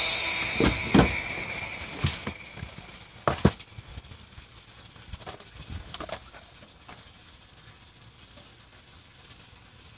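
Dance music ends right at the start, then a few separate knocks and thumps in the first few seconds, then a low room hush.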